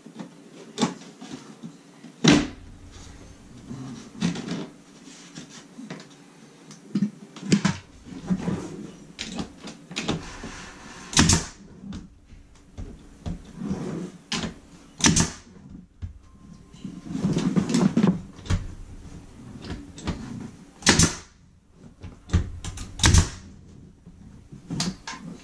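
Pneumatic 18-gauge brad nailer firing brads into wood trim: sharp snapping shots at uneven intervals, about five loud ones, with softer clicks and knocks of the trim being handled in between.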